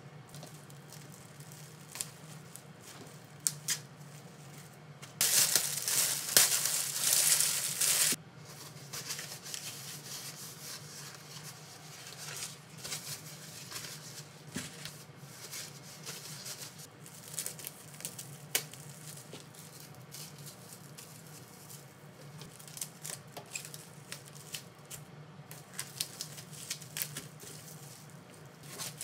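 Plastic cling film being handled: a loud tearing rush of about three seconds as film is pulled off the roll, then scattered crinkling and light clicks as vegetables are wrapped in it. A low steady hum runs underneath.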